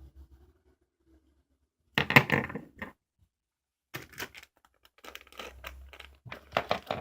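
Rustling, crackling handling noise with dense clicks, coming in three bursts; the first, about two seconds in, is the loudest.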